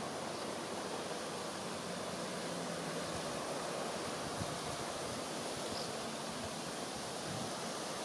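River ambience: a steady, even rush of moving water with light wind, and no distinct events.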